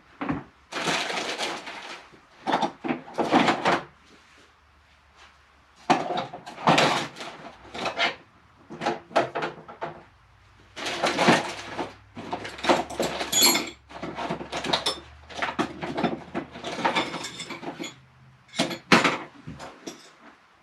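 Metal hand tools clinking and clattering in irregular bursts, with knocks like a drawer or bin being handled: someone rummaging through tools for one to use.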